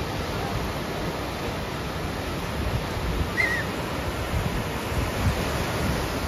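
Sea surf washing in over the shallows at the water's edge, a steady rushing hiss that swells and eases.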